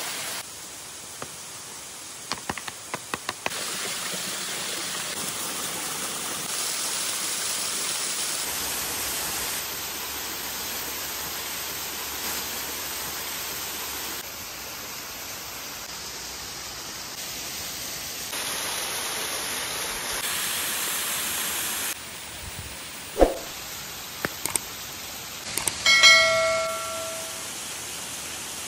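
Steady rushing of a waterfall that jumps up and down in level at the edits, with a quick run of short clicks early and a few sharp knocks later. Near the end comes a single bright, bell-like chime, the loudest sound.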